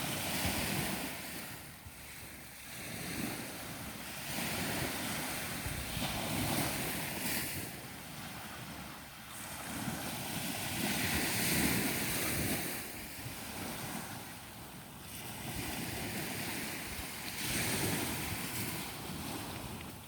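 Ocean surf washing onto a beach, swelling and fading every few seconds, with wind buffeting the microphone.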